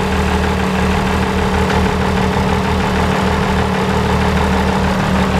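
Rat rod truck's twin-turbocharged diesel engine idling steadily.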